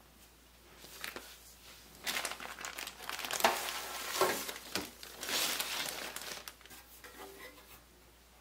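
Packaging being handled and unwrapped: a run of crinkling and rustling that starts about two seconds in, with a few sharper knocks in the middle, and dies down near the end.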